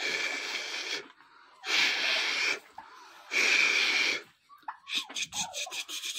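Broody turkey hens sitting on eggs hissing three times, each hiss about a second long: the defensive hiss of a sitting hen when approached. About five seconds in, a fast rattling turkey call begins.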